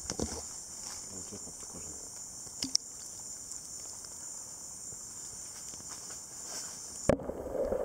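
Steady high-pitched insect chorus of the rainforest, with a few faint knocks and rustles. Near the end it cuts off abruptly at a knock, and a muffled rushing noise follows.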